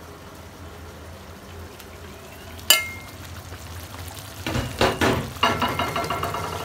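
Roasted duck pieces frying with red curry paste in a pan. A utensil strikes the pan with one sharp metallic clink about two and a half seconds in, and from about four and a half seconds on it scrapes and clanks repeatedly against the pan as the duck is stir-fried.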